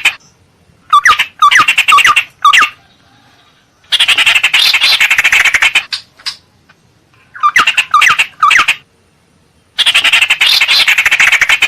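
Recorded calls of a ciung air (tit-babbler) played as a bird lure. Groups of quick rising, hooked notes alternate with two long, fast, harsh chattering runs, the first about four seconds in and the second near the end.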